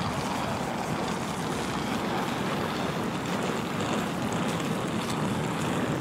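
Steady outdoor street noise: wind buffeting the microphone over the hum of distant road traffic.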